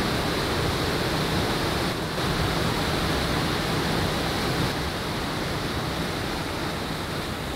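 Steady rush of fast-flowing water, an even hiss with no breaks.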